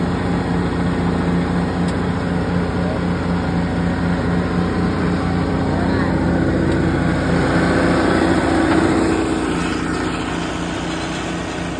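Allis-Chalmers tractor engine running steadily at a low, even speed, swelling slightly about eight seconds in and then easing off.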